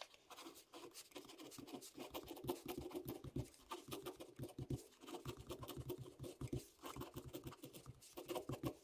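Ballpoint pen writing block capitals on graph paper: quick, faint scratching strokes, broken by a few short pauses between letters.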